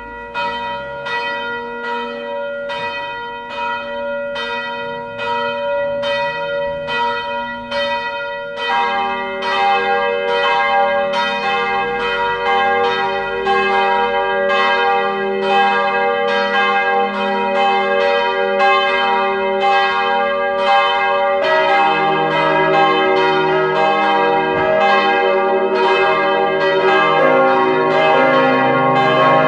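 Swinging church bells cast by Perner, a set tuned c′, e♭′, g′, b♭′, being rung: one bell strikes alone at about one and a half strokes a second. A second bell joins about nine seconds in and a deeper bell about 21 seconds in, building into a fuller, louder peal.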